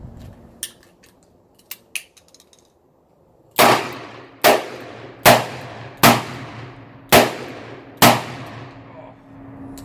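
Six .357 Magnum shots fired one after another from a Smith & Wesson Model 19 revolver, a little under a second apart, each with a short echo. They are preceded by a few light clicks as the revolver is handled.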